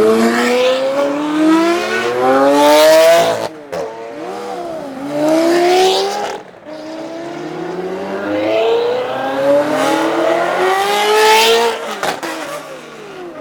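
Supercar exhaust accelerating hard. The engine note climbs in pitch three times, and each climb breaks off sharply as the next gear goes in: about three and a half seconds in, about six and a half seconds in, and near the end.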